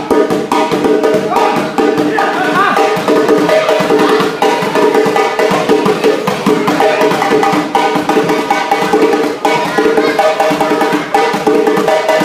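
West African djembe drumming in a fast, unbroken rhythm of hand strikes, with voices over it.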